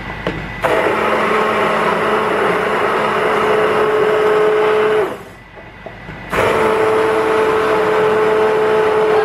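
Soltronics SLC-BLENDER03 immersion hand blender running in a pot of lentil soup, pureeing it: a loud, steady motor whine. It runs about four and a half seconds, stops for over a second, then starts again.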